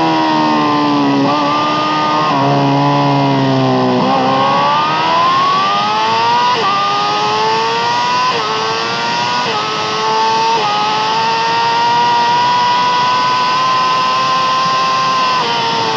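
Yamaha R6 600 cc inline-four sport bike with an Akrapovic exhaust at race pace on track. It slows on engine braking with three blipped downshifts, then accelerates hard through the gears with four upshifts, and starts downshifting again near the end.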